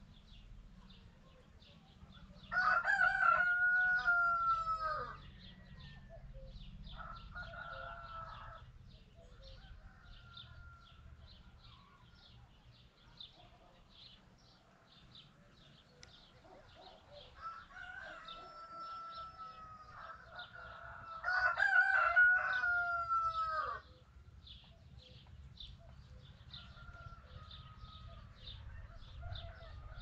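Rooster crowing twice, loud, each crow lasting about two and a half seconds: once about two and a half seconds in and again about twenty-one seconds in. Fainter crows from a more distant rooster come in between. A high, quick chirping goes on about three times a second behind it.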